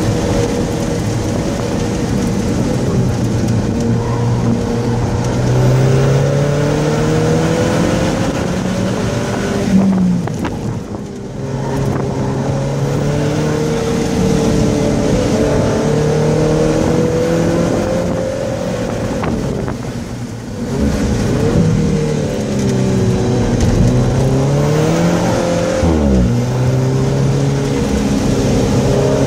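Alfa Romeo 4C's turbocharged 1.75-litre four-cylinder engine running hard in third gear, its pitch rising and falling with the throttle through the corners. The sound drops off briefly twice as the throttle is lifted, and dips sharply in pitch near the end.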